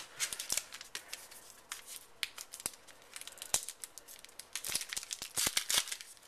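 Trading-card pack wrapper being opened by hand: plastic crinkling and tearing, a quick irregular string of crackles, with cards shuffled against it.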